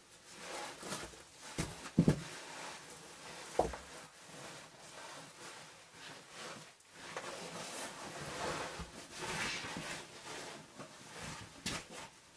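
A person crawling through a tight sandstone cave squeeze: clothing and a pushed-ahead pack scraping and rustling against the rock, with a few knocks in the first few seconds.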